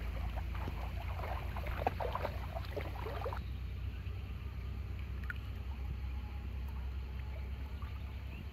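Steady low rumble of wind buffeting the microphone, with light splashing of a child wading through shallow muddy water, most busy in the first few seconds.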